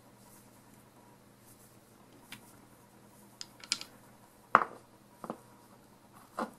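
A handful of light clicks and knocks from small hard parts being handled and fitted together, irregularly spaced, the loudest a sharp knock a little past the middle.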